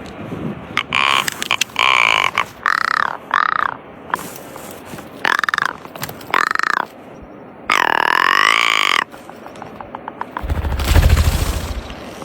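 An animal calling: a series of short calls that rise and fall in pitch, then one longer call, followed by a low, rough sound near the end.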